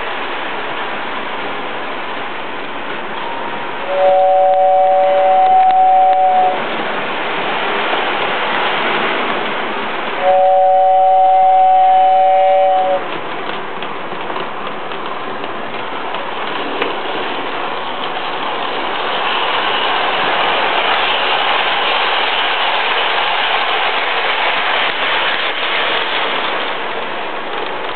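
A toy train sounding two long two-note horn blasts, about four and ten seconds in, over a steady hiss of running noise.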